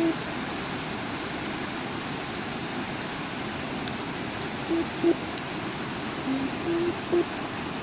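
Steady rain falling on a river, an even hiss of water. In the second half come a few short, low, steady notes, several in a row.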